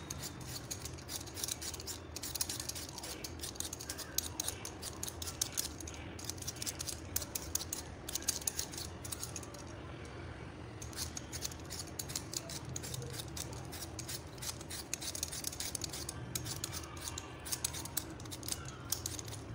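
A small hand blade peeling a raw potato: quick, repeated scraping strokes as the skin is shaved off in strips, with a brief pause about halfway through.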